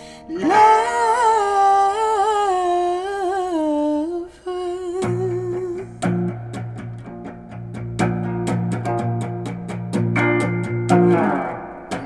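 A man's voice hums or sings a wordless, wavering melody for about four seconds. Then a Gibson semi-hollow-body guitar comes in with picked chords, the strokes quickening into fast strumming before fading near the end.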